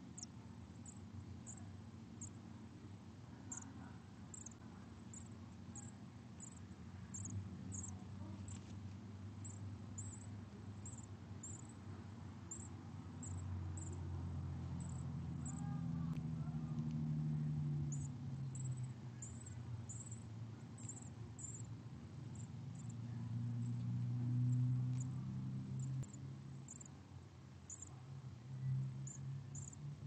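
Dark-eyed junco nestlings begging: short, very high-pitched cheeps, one or two a second with pauses, over a low rumble that swells and fades.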